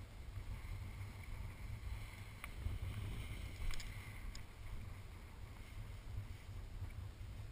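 Wind buffeting the microphone: a steady low rumble, with a few faint clicks around the middle.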